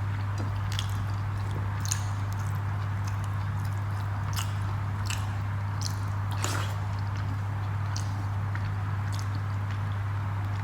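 A person chewing rice and dal: scattered wet mouth clicks and squishes at irregular intervals, over a steady low hum.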